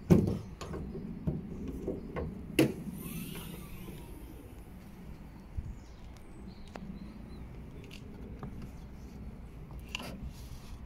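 Hyundai Ioniq 5 bonnet being released and raised: a loud clunk at the start, then several lighter knocks over the next couple of seconds, the last of them sharper.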